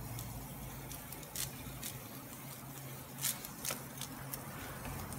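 Pressurized pump spray bottle spraying liquid onto a plastic engine cover in several short hissing squirts, over a faint steady low hum.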